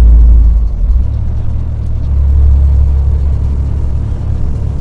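Heavy truck's diesel engine heard from inside the cab while driving, a steady low hum whose note changes about a second in.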